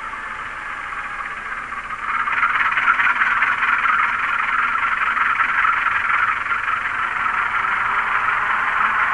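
ESU LokSound Select sound decoder in a model GE U20C locomotive, playing GE FDL diesel sound effects through its small speaker: a thin, rasping noise that steps up in loudness about two seconds in and then holds steady.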